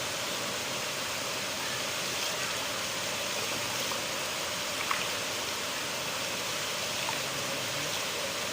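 River water flowing, a steady rushing with no change in level.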